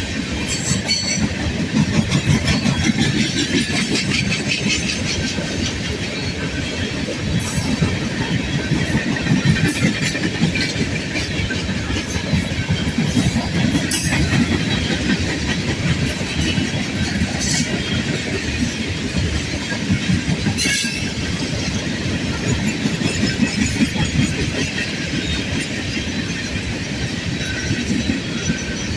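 Loaded freight cars of a CSX coke train rolling past: a steady heavy rumble with wheels clicking over the rail joints, and a few brief high metallic squeaks from the wheels.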